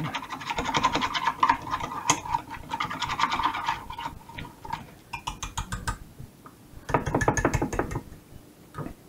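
Whisk beating a tahini satay sauce in a bowl: fast, even strokes that scrape and clink against the bowl, stopping about four seconds in, then two shorter bursts of whisking.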